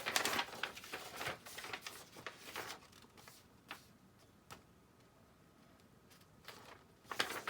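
Paper and packaging being handled: rustling and crinkling in several short bursts, mostly in the first three seconds and again near the end, with a few light clicks between.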